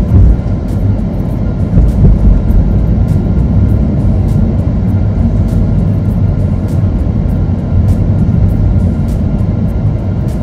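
Steady low rumble of a car driving along a street, heard from inside the cabin, with music playing underneath.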